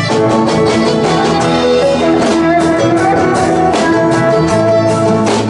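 Electric guitar taking an instrumental solo with sustained notes, over a live band with strummed acoustic guitar and bass guitar keeping a steady beat.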